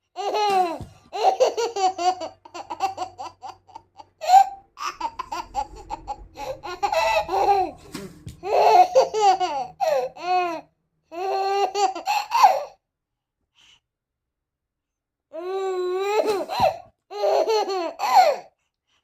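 A baby laughing in repeated high-pitched bursts of giggles and belly laughs, with a pause of about three seconds before it starts again.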